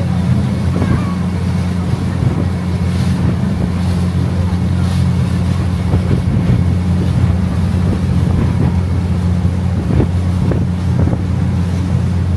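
Engine of a river sightseeing boat running at steady cruising speed, a constant low hum under a hiss of wind and rushing water.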